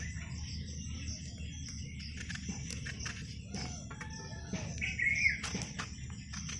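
Rural outdoor background of chickens, with a rooster crowing, over a steady high insect drone; a short bird call about five seconds in is the loudest sound. Light clicks come from a knife slitting small brinjals over a steel plate.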